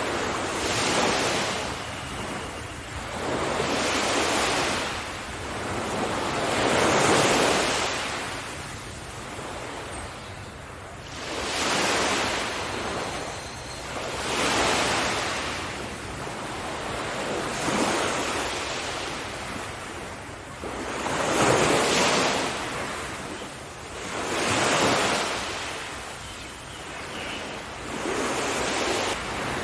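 Sea waves breaking, each one surging up and fading away, about every three seconds.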